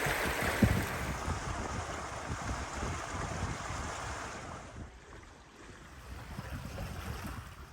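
Wind buffeting the microphone over water rushing past the hull of a sailboat under sail. It eases off and gets quieter about two-thirds of the way through.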